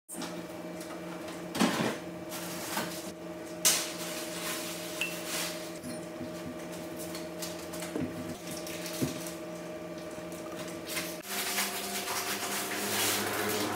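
Measuring spoons clinking against a ceramic bowl and sauce bottles as sauces are measured and poured, with the loudest clinks about two and four seconds in, over a steady low hum.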